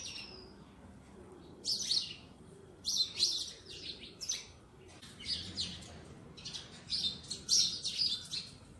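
Small birds chirping in short clusters of quick, high notes that come again every second or so.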